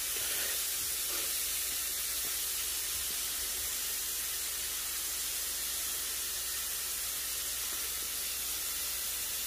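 Lamb keema tikkis sizzling steadily on a hot tawa, frying in the fat released from the mince with no oil added.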